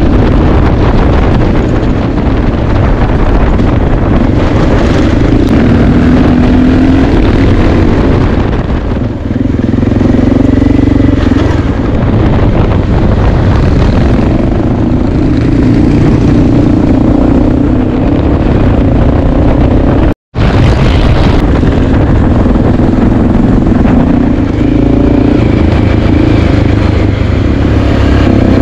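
Dual-sport motorcycle engine running while riding, its note rising and falling with the throttle. The sound cuts out for an instant about two-thirds of the way through.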